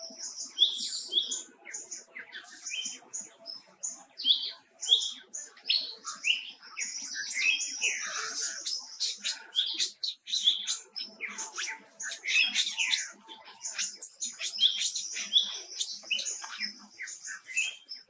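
A busy run of short, high-pitched chirps, squeaks and rising-and-falling whistled calls, overlapping and repeating rapidly, busiest in the middle.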